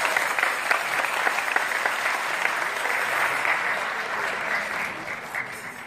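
Audience applauding: a dense patter of clapping that slowly fades near the end.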